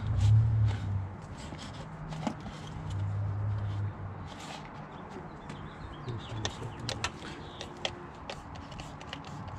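Handling noise as a rubber intake coupling with a metal hose clamp is pushed and worked onto a throttle body: scattered light clicks, scuffs and rubbing. Two brief low rumbles come in, one at the start and one about three seconds in.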